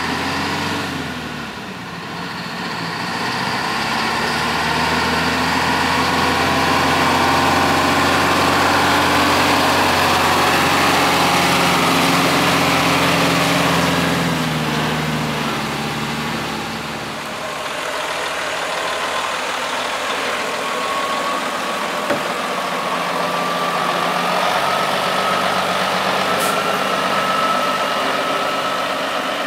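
Diesel engine of a semi tractor without a trailer, driving up and passing close, at its loudest midway and fading by about 17 s in. Then a second diesel semi tractor pulling a lowboy trailer runs at low speed, with a faint whine that rises slowly near the end.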